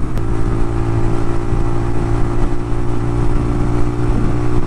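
Suzuki VanVan RV125's single-cylinder four-stroke engine running hard at a steady high speed, its note holding level over a haze of wind and road noise, as the little bike struggles for the power to overtake.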